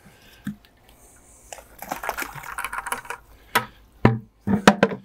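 Fine borate powder scooped from a plastic bucket and thrown onto pool water, giving a spell of splashy hiss, followed near the end by a few sharp knocks.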